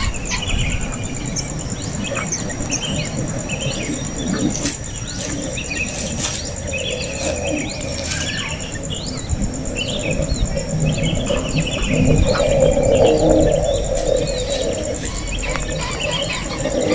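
Birds chirping in many short, quick calls throughout, over a steady high-pitched insect trill.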